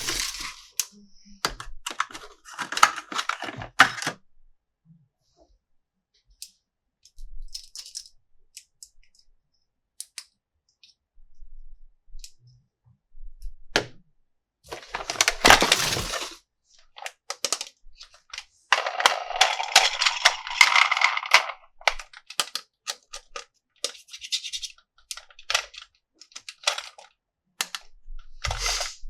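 Plastic toy pieces and packaging being handled: scattered sharp clicks and taps, with several spells of crinkling and rustling a couple of seconds long.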